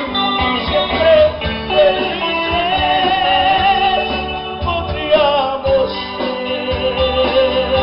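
A small band playing a Latin-style song, with drums, bass, guitar and keyboard and a wavering melody line on top.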